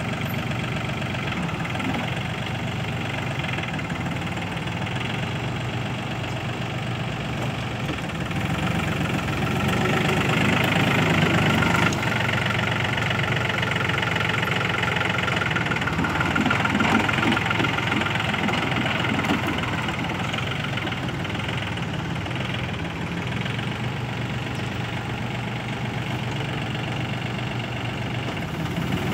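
Yanmar EF393T tractor's diesel engine running steadily under load as it drives a rear rotary tiller through the soil. It grows louder for a few seconds around the middle.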